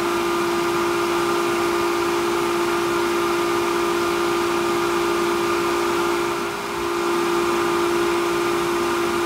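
Hayward variable-speed pool pump running at maximum speed in its priming mode, a steady hum with a high tone as it pulls water in to build suction. The level dips briefly about six and a half seconds in.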